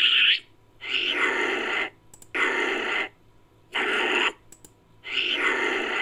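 Homemade sound effect of a Nicobar long-tailed macaque: a person's voice giving repeated monkey-like calls, each under a second, about one every second and a half, four full calls plus the tail of one before.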